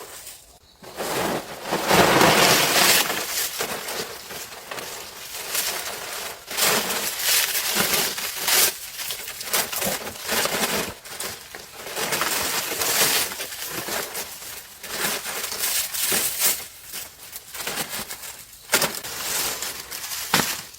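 Irregular bursts of crunching and rustling, like rough material being handled and shifted, coming and going throughout.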